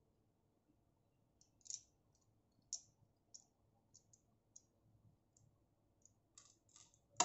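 Faint, irregular light clicks, about a dozen over several seconds, then a sharper knock near the end: small hard objects being handled.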